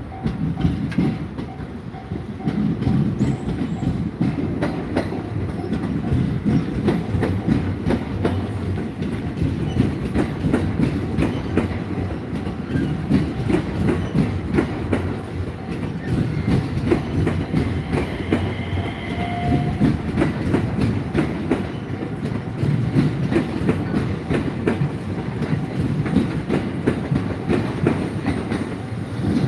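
A train rolling through a level crossing, its wheels clicking in a steady run over the rail joints, with a faint, short high tone about two-thirds of the way through.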